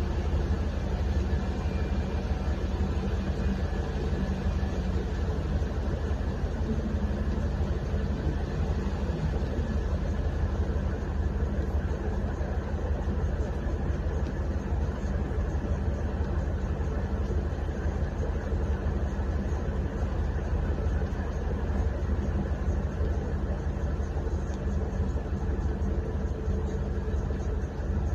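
Vehicle engine idling steadily, a low, even hum heard from inside the cabin of an off-road vehicle.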